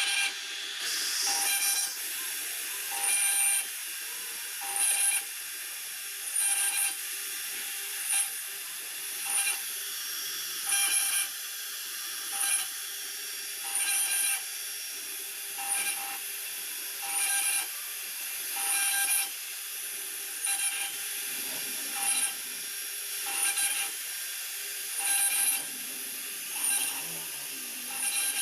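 CNC router spindle running with a steady high whine while its bit cuts a design into a laminated board, the cutting noise swelling at a regular beat about every second and a half to two seconds.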